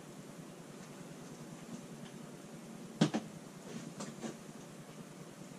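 Soda cans and small cups being handled on a folding table: a sharp knock about three seconds in, then a couple of lighter knocks about a second later.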